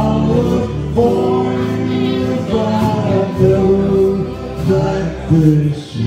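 Live country-folk band: guitars strummed while male voices sing together in harmony.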